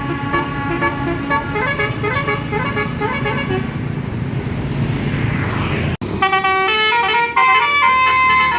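Bus basuri musical horn playing a quick stepping telolet melody over the engine's low rumble. About six seconds in it breaks off abruptly, and a louder, brighter horn melody follows.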